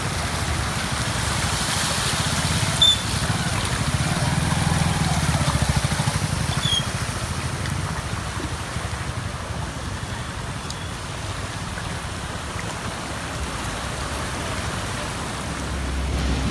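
Floodwater running across a road with rain falling, a steady rushing noise, joined by a low rumble that swells in the first half and fades.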